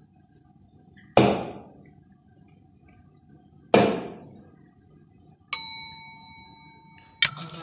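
Two sharp hits a couple of seconds apart, each dying away quickly, then a bright ringing 'ding' chime that fades slowly. The chime matches a cartoon light-bulb 'idea' graphic. Upbeat music starts near the end.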